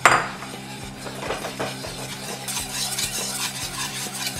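Wire whisk beating a thickening white sauce of butter-flour roux and milk in a pan: a run of quick wet strokes with light clinks of metal on the pan, opening with a sharp knock. A steady low hum runs underneath.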